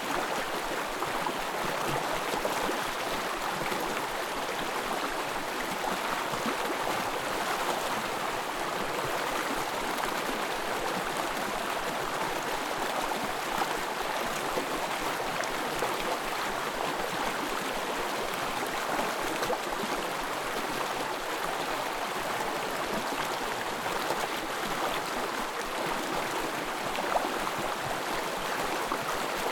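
Small forest stream running: a steady, even rush of flowing water.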